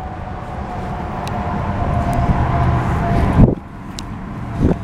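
A 2014 Hyundai Elantra Limited's driver's door shut with a soft thunk about three and a half seconds in, after rustling as the person climbs into the seat. With the door closed the outside noise drops away in the cabin, and a smaller knock follows near the end.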